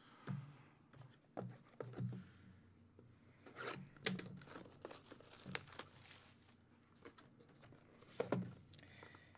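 Cardboard Upper Deck Black Diamond hockey card boxes being handled on a table: scattered light knocks and taps, with some crinkling, as a box is picked up and opened. The loudest knocks come about four seconds in and again near the end.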